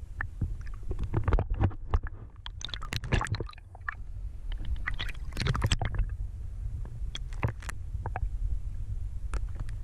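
Muffled underwater sound picked up by a camera in a waterproof housing: a steady low rumble of water moving past, with scattered clicks and knocks, denser in a couple of stretches.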